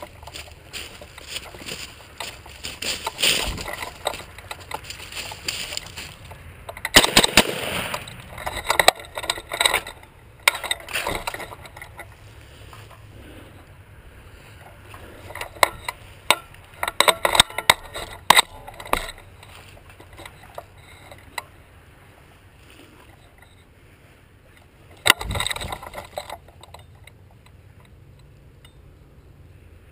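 Handling noise picked up by a camera mounted on an AR-15 rifle: rustling and scraping as the rifle and shooter move through dry brush, broken by clusters of sharp impacts. The loudest come about seven, seventeen and twenty-five seconds in.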